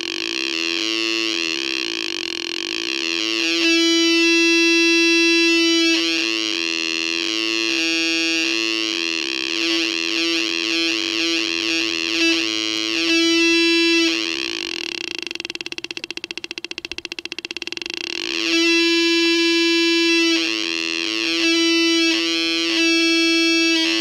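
Funway 1 sound-effects generator, a home-built transistor oscillator, sounding through its loudspeaker as its potentiometer is turned. It gives a steady electronic buzzing tone that keeps warbling and changing character. A little past the middle it breaks into a rapid train of clicks for a few seconds, then the tone returns.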